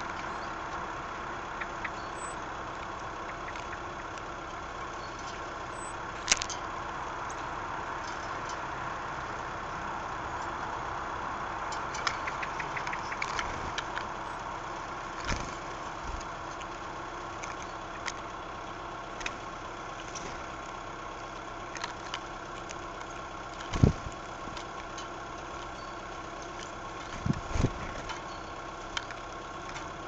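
A steady hum with several fixed tones, with a few sharp knocks on the wooden feeder tray from a common blackbird landing and pecking, the loudest two thirds of the way through and a quick pair near the end.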